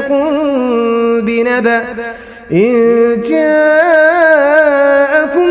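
A man reciting the Quran in the melodic tajweed style, holding long drawn-out vowels with wavering ornamented pitch. There is a short breath pause about two seconds in, then a new phrase begins.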